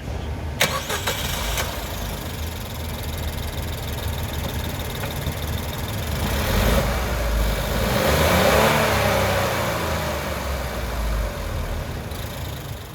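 Suzuki 1.0 Boosterjet three-cylinder turbo petrol engine starting about half a second in and running, its sound swelling to a peak about two-thirds of the way through and easing back down.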